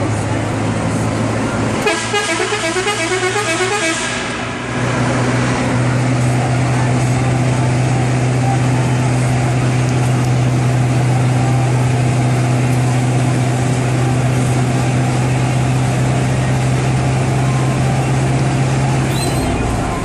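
Otokar Sultan bus's air horn sounding a rapid, warbling run of notes for about three seconds, a couple of seconds in. It is followed by a loud, steady low drone that cuts off shortly before the end.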